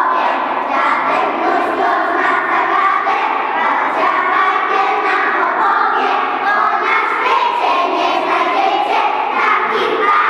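A large group of preschool children singing together in unison, loud and continuous, with many young voices blending into one line.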